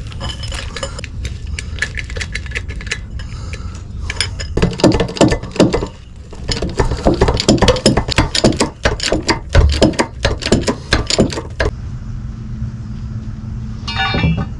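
Metal jacks and angle iron being handled and set in place: scattered clinks, then a dense run of sharp metallic clicks and clanks lasting about seven seconds. A steady low rumble runs underneath.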